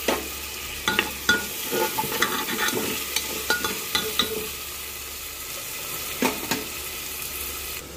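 Onions, tomatoes and curry leaves sizzling in hot oil in a pressure cooker, stirred with a metal spoon that scrapes and clicks against the pot several times in the first few seconds and twice more near the end.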